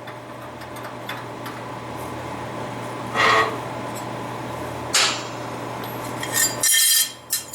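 Two heavy hammer blows on metal forging tooling about three and five seconds in, over a steady shop-machine hum that cuts off near the end, followed by a burst of metal-on-metal clinking and rattling.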